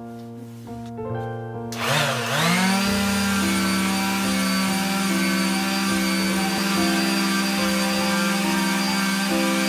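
Soft background music, then about two seconds in an electric palm sander starts up, its whine rising and settling into a steady hum with a hiss as it sands the iron flywheel rim of a letterpress. The music carries on underneath.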